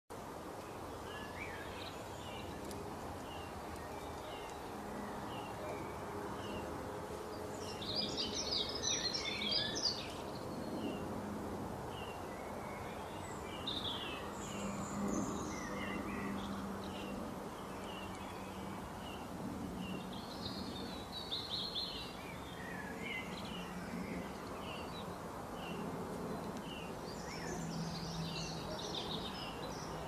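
Wild birds calling: a long run of short, evenly spaced chirps, with louder bursts of song about eight seconds in, mid-way and near the end, over a steady background hiss and a low hum.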